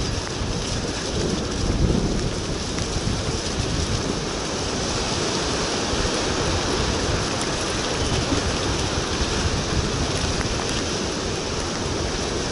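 Bicycle rolling fast down a rough, muddy dirt track: a loud, steady rush of wind on the microphone mixed with tyre rumble and rattling jolts.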